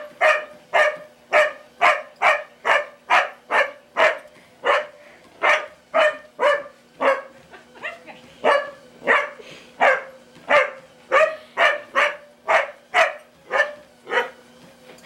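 A dog barking excitedly at a running treadmill, steady and repetitive at about two sharp barks a second without a break.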